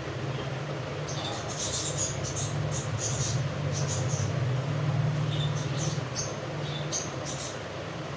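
A steady low mechanical hum that swells a little in the middle, with short high squeaks or chirps scattered over it.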